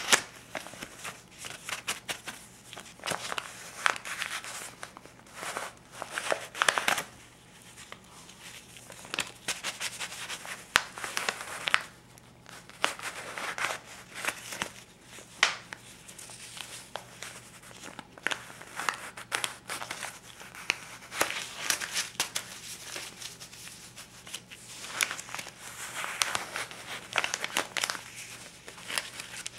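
US paper currency, a stack of $50 and $20 bills, handled and flipped through: irregular crisp crinkling and rustling of the bills, with sharp snaps and flicks as individual bills are turned.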